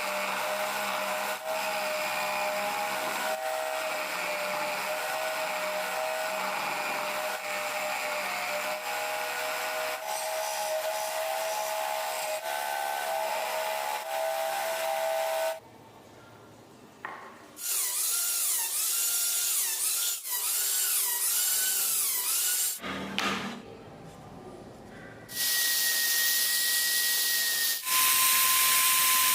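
Small electric power tools working wood in several runs. A steady whine lasts about fifteen seconds; after a brief pause a whine wavers up and down in pitch as the tool is pressed into the wood and eased off. Near the end come two shorter, higher steady whines.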